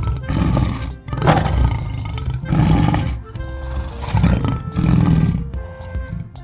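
An animal roaring repeatedly, about once a second, over background music.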